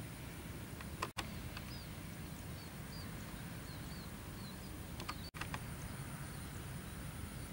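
Rural outdoor ambience: a low wind rumble on the microphone, a run of small bird chirps about halfway through, and a steady high insect whine. The sound cuts out briefly twice, with a click at each break.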